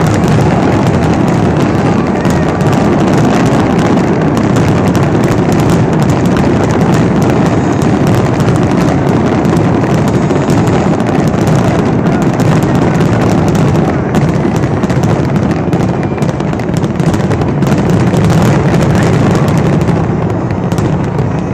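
Fireworks finale: a loud, unbroken barrage of shells bursting, with dense crackling reports, easing slightly near the end.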